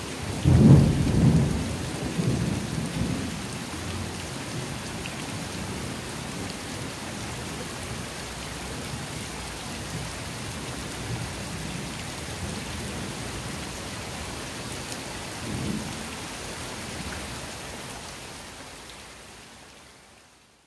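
Steady rain falling onto a wet concrete courtyard floor and potted plants, with a rolling thunderclap about half a second in that rumbles away over a few seconds and a smaller rumble later on. The sound fades out near the end.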